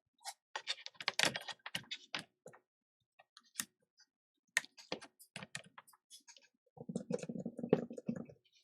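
Irregular small clicks and taps of handling an iPhone and its parts on a repair bench, with a second or so of rubbing near the end.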